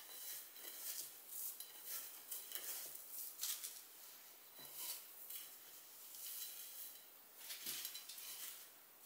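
Faint kitchen-work sounds: utensils clinking and scraping against cookware in short, irregular strokes.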